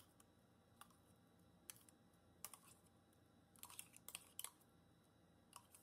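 Faint, light clicks and taps of a metal spoon against the container as ground masala paste is scraped out onto raw chicken, a few spaced single clicks with a quick cluster a little past the middle.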